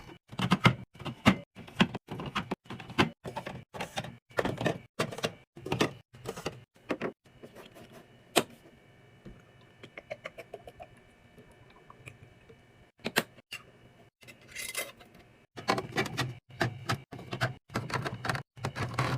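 Restocking handling noises: packaged items and plastic containers clicking, knocking and rattling as they are set down and arranged. Fast clatter at the start and again near the end, with a quieter middle broken by a few sharp clicks and a quick string of small ticks.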